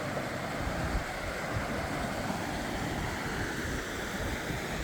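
Wind buffeting the microphone: a steady rushing with irregular low thumps.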